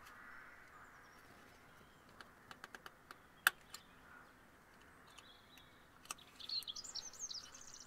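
Small metallic clicks and one sharper tick of a ring spanner working the lock nut on a BMW M10 rocker arm's valve-clearance eccentric as it is snugged down, not overtightened. A bird chirps near the end.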